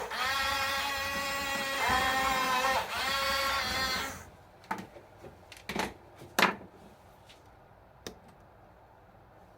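Small electric motors and plastic gearboxes of a Huina 1569 RC bulldozer whining under remote control, stepping up and down in pitch with short breaks, then stopping about four seconds in. A few sharp clicks and knocks follow.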